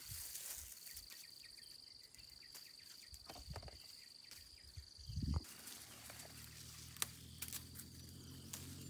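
An insect singing one steady high-pitched trill that stops about five seconds in, just after a dull thump. A low steady hum then takes over, with a few scattered clicks and rustles.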